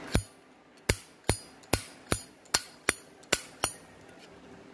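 Zippo lighter's hinged metal lid being flipped open and snapped shut over and over, giving nine sharp metallic clicks with a short ring, about two or three a second.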